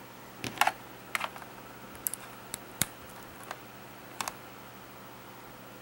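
About a dozen light, sharp clicks and plastic taps scattered over the first four seconds or so, from a white plastic mains plug and cord being handled.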